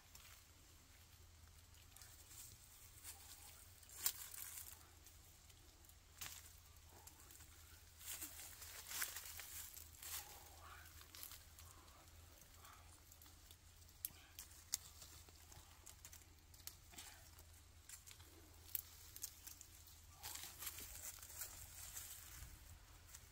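Faint handling noise: rustling and tearing with scattered sharp clicks, over a steady low hum.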